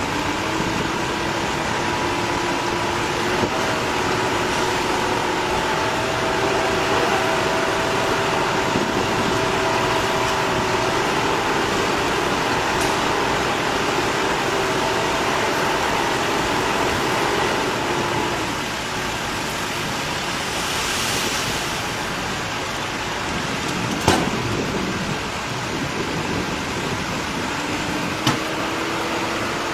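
Steady motor-vehicle and traffic noise with a droning engine tone that fades about two-thirds of the way through and comes back near the end. Two short sharp knocks sound in the last third.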